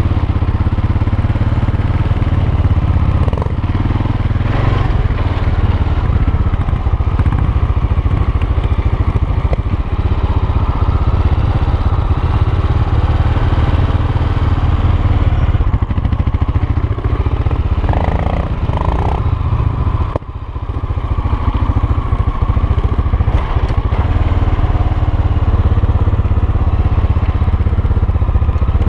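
Honda NX650 Dominator's single-cylinder four-stroke engine running as the bike is ridden over rough concrete, dipping briefly about two-thirds of the way through before picking up again.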